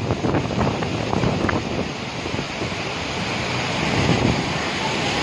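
Floodwater rushing in a fast torrent down a street in heavy rain: a steady, loud rushing noise.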